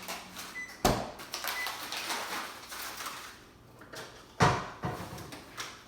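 Kitchen cookware and utensils being handled on a counter: two sharp knocks, about a second in and again about four and a half seconds in, with lighter clicks and rustling between.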